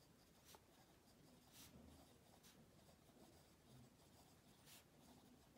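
Faint, irregular scratching of a pen writing on lined notebook paper.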